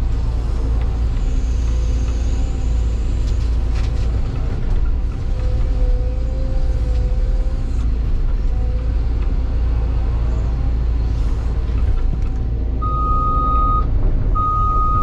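Cat 316 excavator's diesel engine running steadily while it works. Near the end an electronic warning beep sounds twice, each about a second long.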